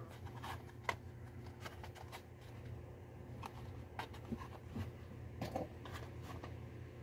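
Faint crinkles and clicks of a carded Matchbox toy car's plastic and cardboard packaging being handled, with one sharper click about a second in, over a steady low hum.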